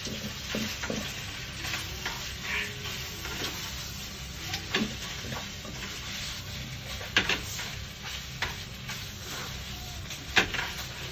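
Spaghetti and bacon being stirred with wooden chopsticks in a frying pan over a gas flame: a steady low sizzle, with a few sharp clicks of the chopsticks against the pan.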